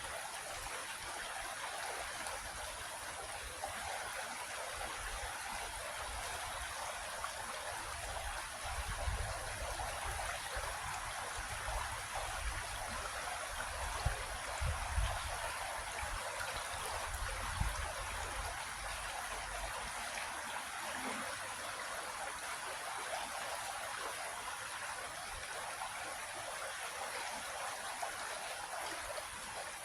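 A creek flowing steadily, a continuous rushing and trickling of water. Low rumbling swells in the middle stretch and then fades.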